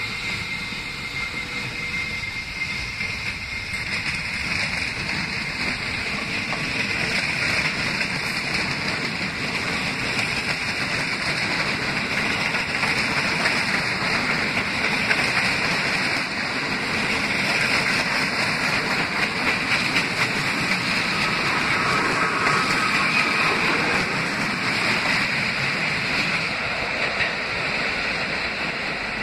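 New York City subway train moving along the platform track, with a steady rumble and rattle of wheels on rails. It grows louder through the middle as the cars pass, then eases off near the end.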